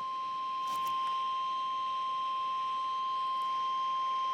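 The NOAA Weather Radio 1050 Hz warning alarm tone, sent as part of the required weekly test, playing as one steady high-pitched tone through a weather radio's speaker.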